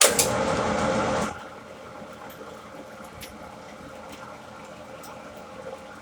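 A metalworking machine running steadily while drilling out a metal airgun chamber. It is loud for about the first second, then settles to a steady, lower hum with a few light clicks.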